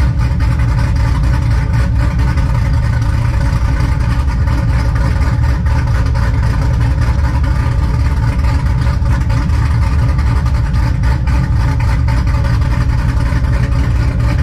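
Cammed 4.8L Vortec V8 of a Chevrolet Silverado, fitted with a BTR Stage 4 truck cam, idling steadily.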